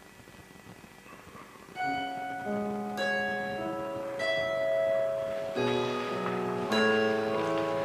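Slow piano music begins about two seconds in, single notes and chords ringing on. Before that there is only faint hiss.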